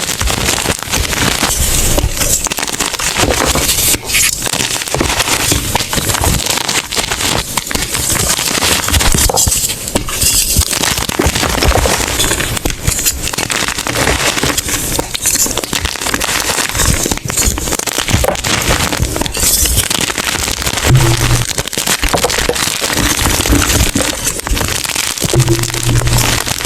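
Blocks of gym chalk being crushed, a loud, crispy run of dense crunching and crackling with no pause.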